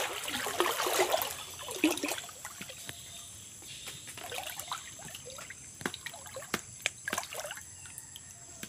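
Water splashing and trickling, busier for about the first two seconds, then settling to a quieter trickle with scattered drips and small splashes.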